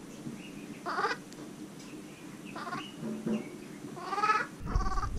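Baby vervet monkey calling: a handful of short, pitched calls about a second apart, the longest about four seconds in. A low rumble of handling on the microphone starts near the end.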